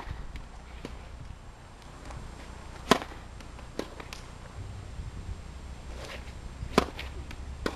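Tennis rackets hitting a tennis ball: sharp pops of the strung racket on the ball, the loudest about three seconds in and again about a second before the end, with fainter clicks between them.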